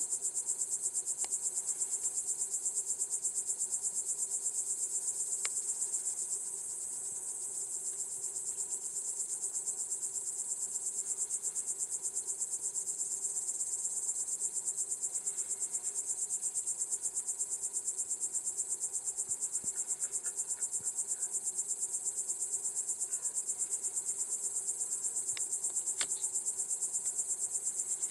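Crickets chirring in a steady, high-pitched chorus with a fast, even pulse, with a few faint clicks.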